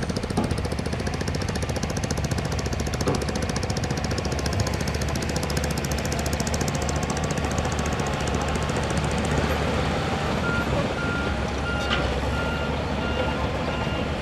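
Diesel engine of a heavy earthmoving machine running steadily with a fast, even clatter. From about ten seconds in, a reversing alarm beeps at a steady pace over it.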